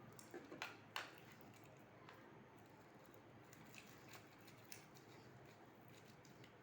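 Faint sticky squelches and clicks of homemade glue-and-borax slime being kneaded by hand, with a short cluster of sharper ones about half a second to a second in and a few softer ones later.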